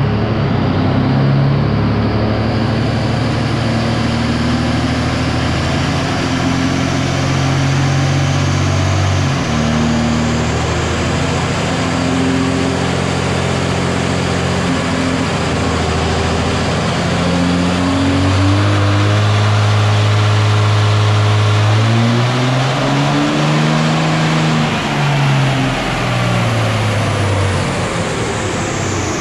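Stock 2006 Dodge Ram's 5.9L Cummins inline-six turbo-diesel pulling hard on a chassis dyno, its pitch holding and then stepping at each gear change. Near the end it lets off and a high whine falls away.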